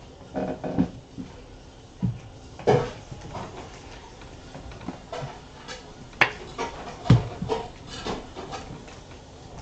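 Trading-card pack and cards handled on a table: a plastic foil pack wrapper crinkling and cards and packs set down, in a string of irregular knocks and rustles, the sharpest knocks near the start, about a quarter of the way in, and twice past the middle.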